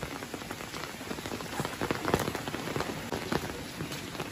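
Heavy rain falling steadily, with many separate drop hits standing out from the even hiss.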